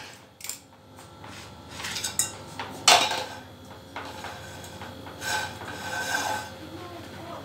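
A spoon scraping and rubbing around a plastic bowl as pancake batter is stirred by hand, with scattered light taps and a sharper knock about three seconds in.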